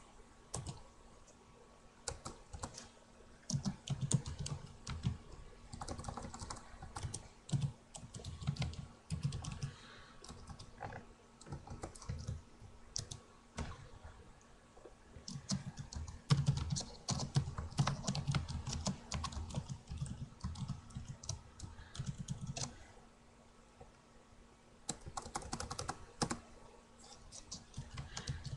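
Typing on a computer keyboard: irregular bursts of key clicks, broken by pauses of a few seconds.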